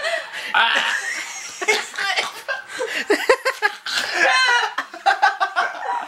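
People laughing hard, with a high, wavering peal of laughter about four seconds in.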